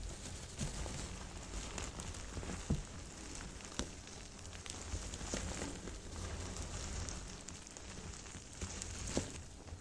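Microwave-puffed baby soap being cut, its dry, airy foam crunching and crackling in a continuous run of small crisp crackles, with a few sharper snaps.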